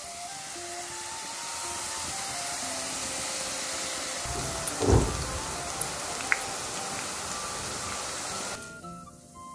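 Ribbon pakoda dough deep-frying in hot oil in a kadai: a loud, steady sizzle of oil bubbling around the dough, which cuts off sharply near the end. About five seconds in there is a dull thump, followed by a few sharp clicks.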